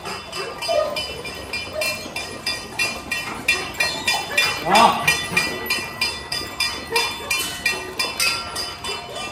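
Dogs eating and lapping milk from stainless-steel bowls: the bowls clink and ring in a quick, regular rhythm of about three or four knocks a second. A short voice-like call comes about five seconds in.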